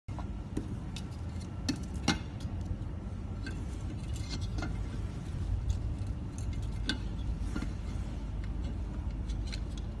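Scattered clicks and light knocks of plastic LED lamp parts being handled and fitted together, the loudest about two seconds in, over a steady low hum.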